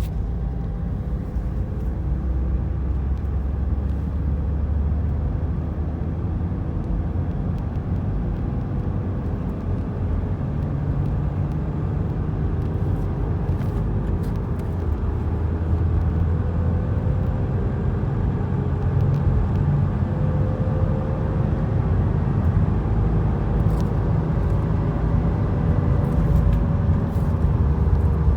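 A 2017 Subaru WRX on the move: steady low road rumble with a faint whir whose pitch wavers up and down, getting a little louder in the second half. The owner suspects bad rear wheel bearings.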